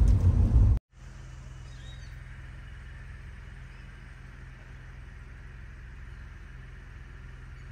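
Car-ride noise that cuts off abruptly under a second in; after a brief silence, faint steady outdoor background with a low hum, and a single faint high chirp about two seconds in.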